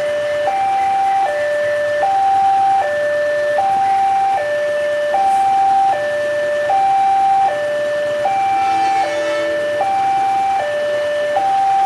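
Level-crossing warning alarm sounding a repeating two-tone electronic signal, a higher tone and a lower tone alternating about every three-quarters of a second: the crossing is warning of an approaching train. A short horn sounds about nine seconds in.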